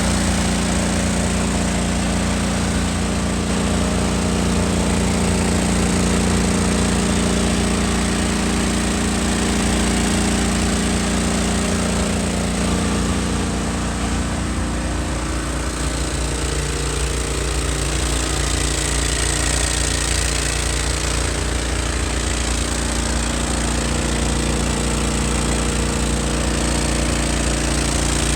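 27 hp Kohler engine of a hot-water pressure washer running steadily, driving a Comet plunger pump, with a loud steady hiss over it. The engine's tone shifts a little about halfway through.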